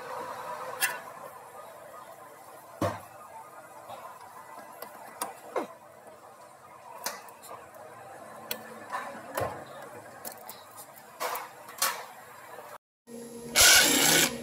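Scattered light metal clicks and clinks of hand tools and locking pliers against the brake caliper and hose fittings. Near the end comes a short, loud burst from a cordless power tool on the caliper.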